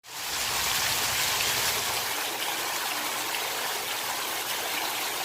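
A steady rushing hiss that fades in at the very start.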